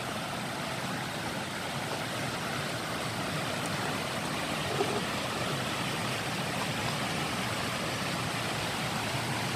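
River water rushing steadily over a low stepped concrete weir.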